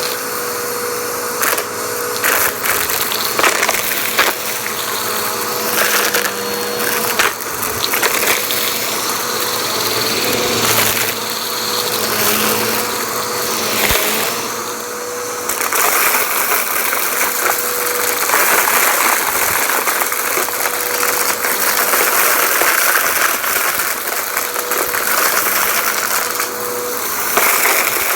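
Vacuum cleaner running steadily with a constant whine, crackling and clicking as it sucks up crunchy debris.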